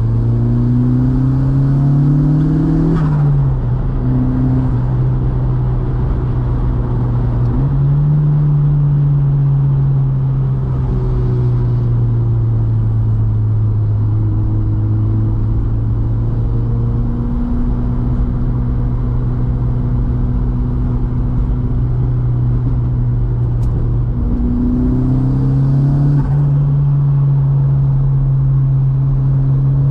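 Volkswagen Mk2's 1.8-litre turbocharged four-cylinder engine running under load while driving, with road noise underneath. The engine note climbs, drops sharply about three seconds in, rises again and holds steady for a long stretch, dips briefly past the middle, then climbs again near the end.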